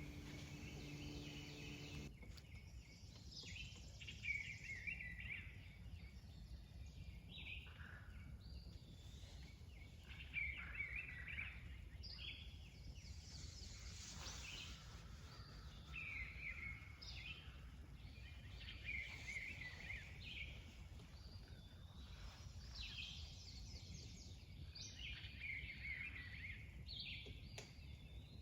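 Birds calling again and again in short phrases over a steady low rumble.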